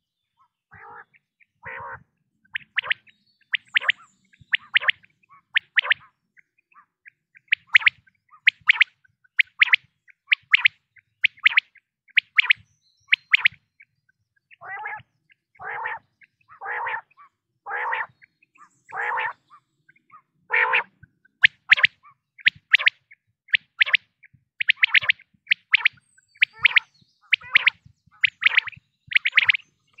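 Quail calling: a steady series of short, high chirping notes in quick clusters, repeating about once a second. In the middle comes a run of lower, longer, rougher calls, also about once a second.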